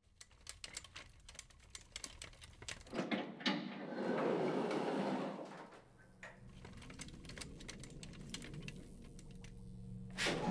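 Produced sound effects: a run of rapid mechanical clicks and rattles, then a loud rushing hiss from about three to five and a half seconds, giving way to a steady low hum with faint held tones, the ambience of a laboratory.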